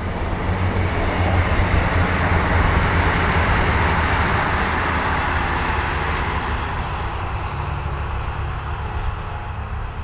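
A train passing on the railway line: a rumbling rush of noise that swells over the first few seconds and then slowly fades.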